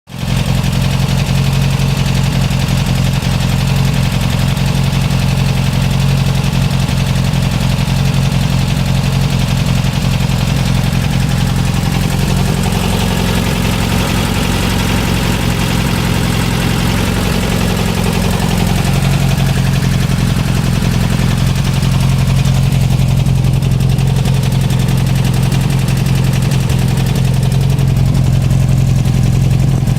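Volkswagen 1700 Type 4 air-cooled flat-four engine idling steadily, with a rapid, even tick running through it. The idle sounds rough to the owner, and its pitch wavers a little past the middle.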